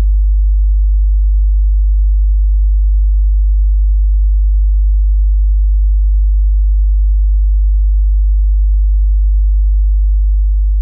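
A loud, steady, very deep sine test tone for checking a subwoofer's bass response, held at one pitch without change.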